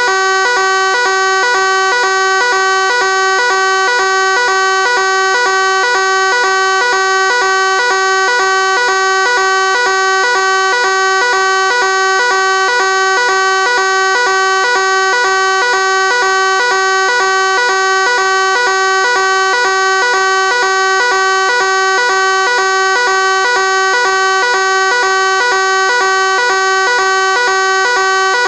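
Fire alarm sounding one continuous buzzy tone, steady in pitch and loudness, without breaks.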